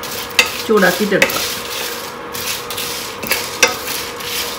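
A wooden spatula stirs and scrapes whole dried red chillies, garlic cloves and seeds around a nonstick frying pan over a light sizzle, with a few sharp scrapes and knocks against the pan.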